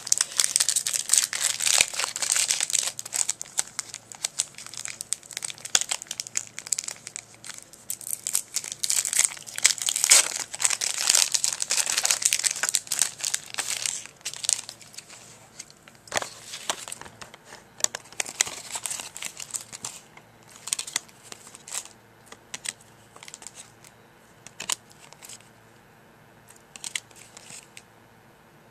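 A Yu-Gi-Oh! booster pack's foil wrapper being torn open and crinkled. Dense crinkling runs for about the first half, then gives way to sparser, separate crackles that thin out toward the end.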